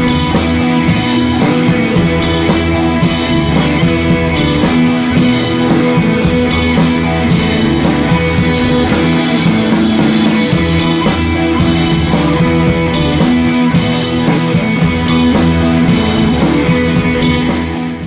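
Background rock music with guitar and drum kit playing a steady beat, fading out at the very end.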